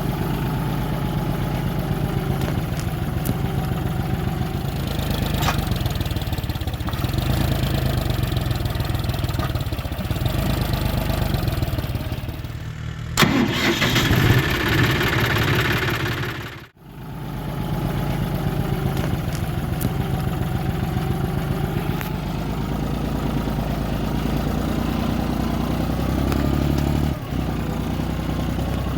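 John Deere 5050D tractor's three-cylinder diesel engine running steadily. About halfway through, a louder rushing noise lasts a few seconds and then cuts off abruptly before the engine sound resumes.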